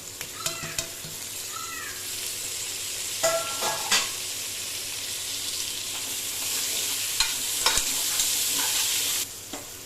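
Onions and tomatoes sizzling in hot oil in a pressure cooker pot while being stirred, with a few metal spoon clinks against the pot. The sizzle grows louder and stops suddenly near the end.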